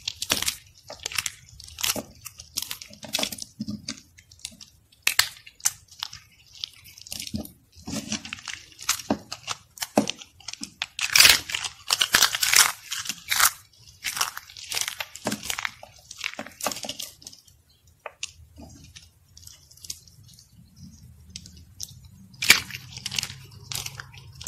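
Thin, brittle soap shavings crushed and crumbled between the fingers: irregular, crisp crunching and crackling, with a quieter stretch about three quarters of the way through.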